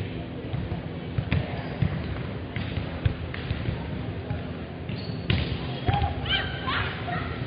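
Volleyballs thudding off players' forearms and hands and onto the hardwood court, irregular short thumps echoing in a large gym, over a steady murmur of players' and spectators' voices. A quick run of high squeaks comes about six seconds in.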